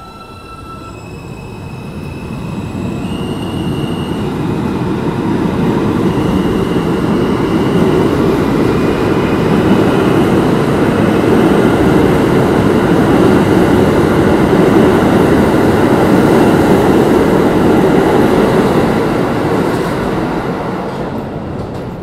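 R160A subway train pulling out of the station. A whine from its motors steps up in pitch over the first few seconds, then the passing cars' rumble and wheel noise grows loud and fades as the last car leaves.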